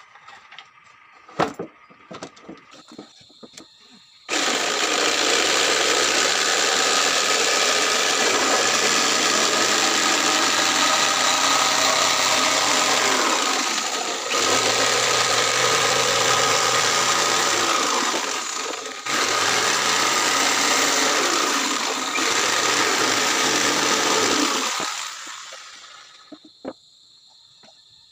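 Electric jigsaw cutting through a plywood panel: the blade runs steadily for about twenty seconds, stops briefly twice and starts again, then winds down. A few light knocks of wood being handled come before the cut.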